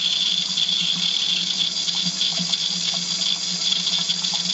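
Steady hiss and run of water flowing through a Pentair PRF-RO reverse osmosis unit and out of its tubes into a drain, with a constant low hum underneath. The unit has just been turned on and is flushing: waste water is running and purified product water has just begun to come through.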